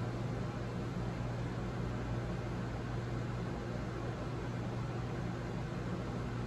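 Steady low hum with an even hiss over it, unchanging: background room noise.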